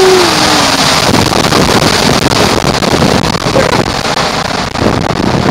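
Water rushing and a raft sliding through an enclosed water-coaster tube, with wind on the microphone, as a steady loud rush. A voice trails off in the first half-second.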